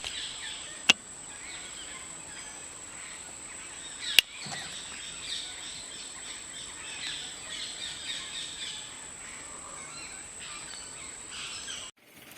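Wild birds chirping and calling in many small overlapping notes over a steady high-pitched tone, with two sharp clicks about one second and four seconds in. The sound cuts off abruptly just before the end.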